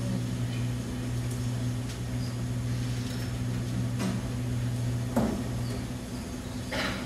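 Steady electric hum from a Marshall guitar amplifier with the electric guitar plugged in, cutting off with a click about five seconds in. A few light knocks and a brief rustle follow as the guitar is handled.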